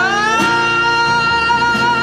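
Music from an acoustic guitar cover of a pop ballad: a long held melody note with vibrato slides up about half a second in and then holds, over strummed acoustic guitar.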